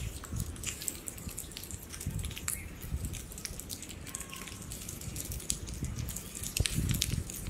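Food cooking in a pan: irregular small crackles and clicks over a low rumble.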